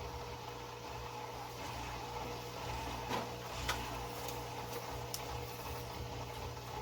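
Marineland Penguin 200 hang-on-back aquarium filter motor humming steadily just after being switched on, with a few faint clicks about three and five seconds in.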